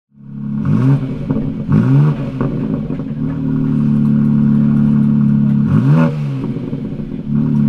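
BMW X4 M Competition's twin-turbo straight-six, heard at its quad-tip exhaust, running steadily and blipped in quick revs that rise and fall, twice in the first two seconds and once more about six seconds in.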